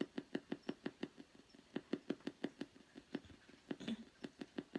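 Spirit box sweeping through radio stations: a rapid, steady stutter of short static bursts, several a second. About four seconds in a brief voice-like fragment comes through the sweep.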